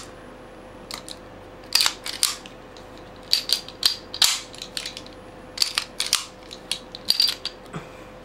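1911 pistol being functions-checked by hand after reassembly: sharp metal clicks and clacks of the slide and action being worked, coming in small clusters every second or so.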